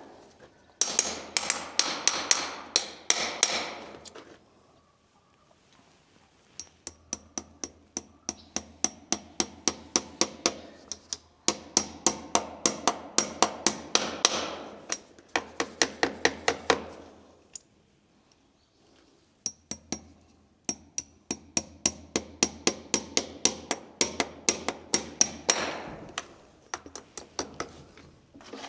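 A farrier's hammer strikes metal in fast, even runs of about four blows a second, each blow ringing. There are four runs of several seconds each, with short pauses between them.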